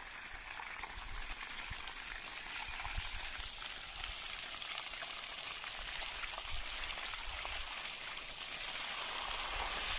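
Water gushing steadily out of the open end of a borewell pipe and splashing onto the ground, a little louder toward the end. The pipe is being flushed under pressure from a second pump to clear out mud that had silted it up and cut the borewell's water pressure.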